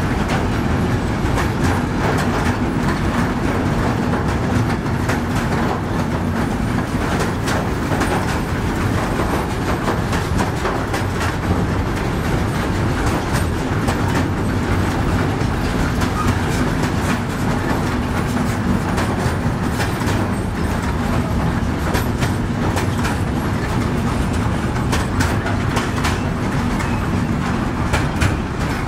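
Freight train of container flat wagons rolling slowly past, a steady rumble of wheels on rails with frequent irregular clicks and knocks as the wheels cross rail joints.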